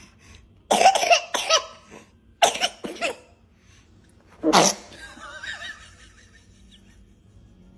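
A baby coughing and sneezing in three groups of short bursts. There are a couple of bursts about a second in and two more near three seconds. One louder sneeze comes about four and a half seconds in, followed by a faint high vocal sound.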